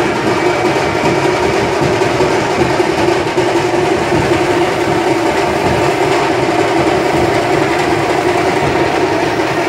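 Loud, continuous festival din: fast, unbroken dhol drumming blended with the noise of a large crowd, running evenly without a break.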